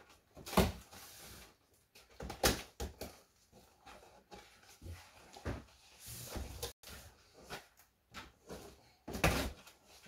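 Cardboard box being opened and handled: flaps knocking and scraping, with several sharp thumps, the loudest about half a second in, about two and a half seconds in and near the end, and a brief scraping rustle around the middle.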